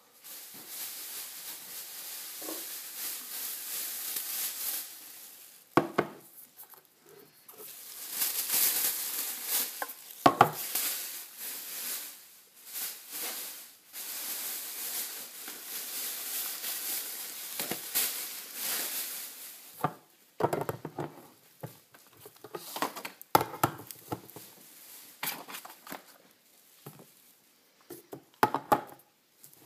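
Plastic grocery bags rustling and crinkling as groceries are unpacked, with scattered knocks and clinks of cans and packages being set down.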